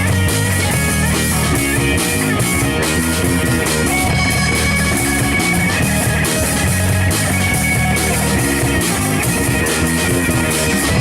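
Live rock power trio playing: electric guitar, bass guitar and drum kit, steady and loud.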